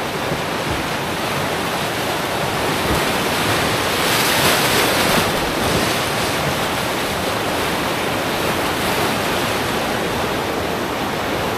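Whitewater river rapids rushing steadily, heard from a raft low on the water, swelling briefly about four seconds in.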